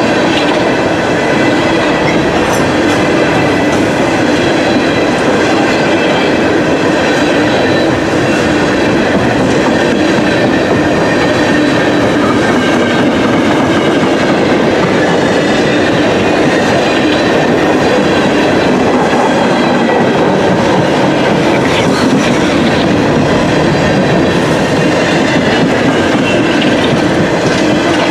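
A CSX coal train's open-top hopper cars rolling past close by. Their steel wheels make a loud, steady running noise on the rails.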